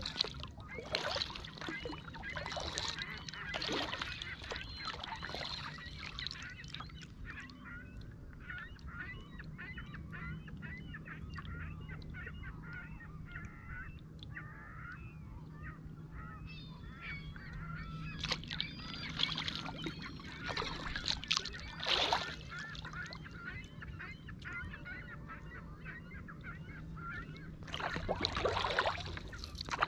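Kayak paddle strokes splashing in the water at the start, again a little past the middle and near the end. Between them a flock of birds calls in a quick, busy, continuous chatter.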